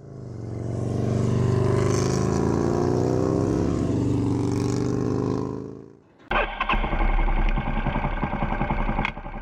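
A motorcycle engine sound under the animated intro, its pitch drifting up and down, fading in and then fading out about five and a half seconds in. About six seconds in a motorcycle engine starts being heard running at low revs from the rider's seat, a deep even rumble, with a click near the end.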